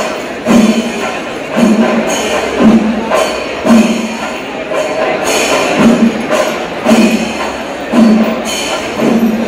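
Kerala temple percussion ensemble, chenda drums with ilathalam hand cymbals, playing a steady melam, with a loud drum stroke about once a second over constant cymbal clashing.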